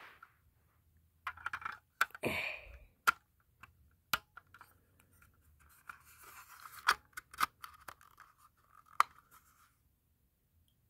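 Plastic smoke alarm being handled while a battery is fitted: scattered sharp plastic clicks and snaps with short bouts of scraping and rubbing, most of them between about one and ten seconds in.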